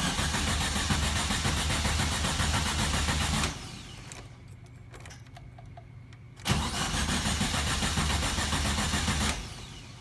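1973 VW Super Beetle's air-cooled flat-four being cranked by the starter twice, each time for about three seconds, and not catching: a no-start.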